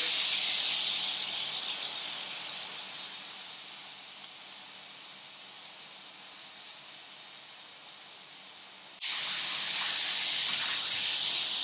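Apple pieces frying in butter in a pan, a steady high sizzle. It dies down over the first few seconds, then comes back suddenly and loud about nine seconds in.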